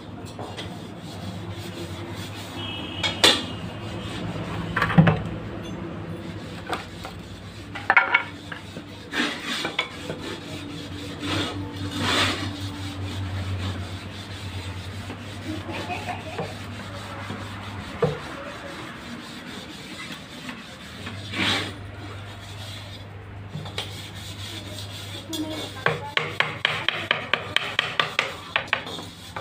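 Hand work on wood: rubbing and filing strokes with scattered knocks and clatter over a low steady hum. Near the end comes a quick run of strokes, about four a second.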